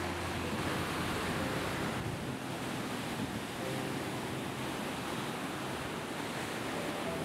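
Surf washing up and running back on a sandy beach: a steady rush of breaking waves.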